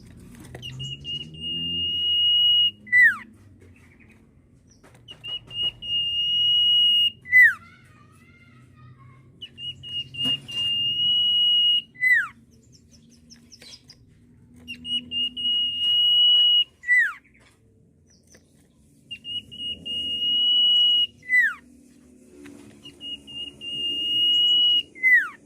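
Sirtu (cipoh, common iora) whistling its song six times. Each phrase is a long, steady, high whistle that ends in a quick downward slur.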